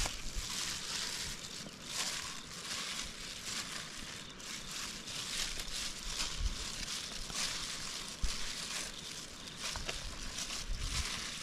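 Rustling and crinkling of a plastic glove and banana leaves as a hand sorts piles of small freshly caught fish, in irregular scrapes and swishes.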